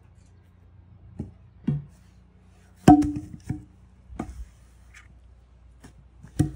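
Wooden rollers cut from fence posts knocking as one is dropped and set in place: a string of separate hollow knocks, the loudest about three seconds in with a short ringing tone.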